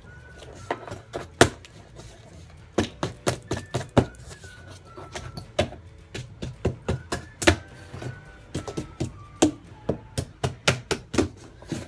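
Bubble wrap and cardboard packaging being pulled off and handled, giving many irregular sharp crackles and pops with a few heavier knocks.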